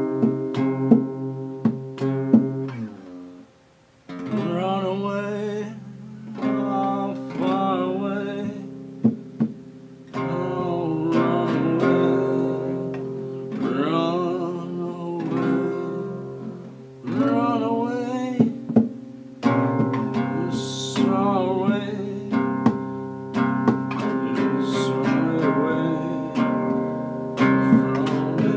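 Acoustic guitar played with a man singing over it, the voice wavering in pitch on held notes. The playing dies away briefly about four seconds in, then the song picks up again.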